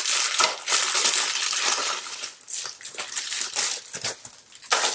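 Clear plastic packaging crinkling and crackling as it is handled and pulled open, in irregular bursts with a short lull near the end.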